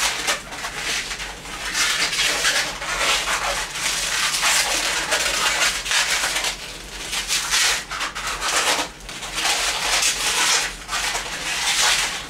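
Inflated latex 260 modelling balloons rubbing against each other and the hands while being twisted into pinch twists, in repeated bursts of rubbing.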